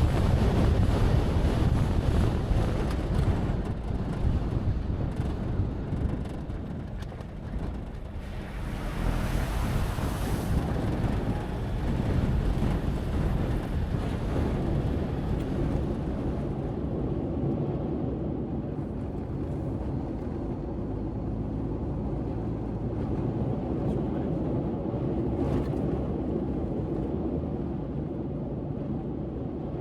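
Vehicle driving on a gravel road, with wind buffeting the microphone. The rushing noise is strongest in the first few seconds and again about nine seconds in, then settles into a steadier lower rumble.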